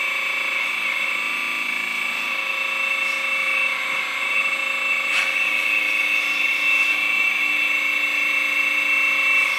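Electric hydraulic pump of a 1/14-scale JDMODEL EC360 V2 metal RC excavator running with a steady high whine while the boom, arm and bucket cylinders move, with a couple of faint clicks.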